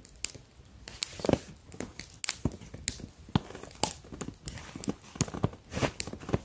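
Gear being handled and packed into a backpack: irregular clicks and knocks with fabric and nylon rustling between them.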